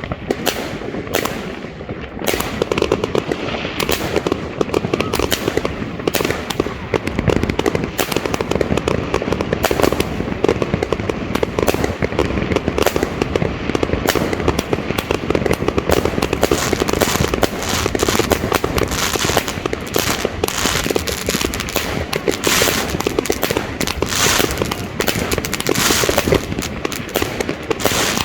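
A 61-shot consumer fireworks cake of 20 to 30 mm calibre firing a rapid, unbroken run of shots and bursts, with crackling growing denser toward the end.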